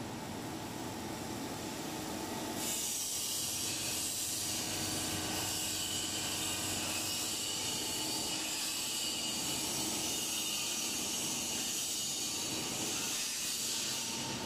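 Tube ice machine running with its 15 HP Bitzer semi-hermetic piston compressor (4HE-18Y) humming steadily. About three seconds in, a strong steady hiss starts suddenly and carries on over the hum.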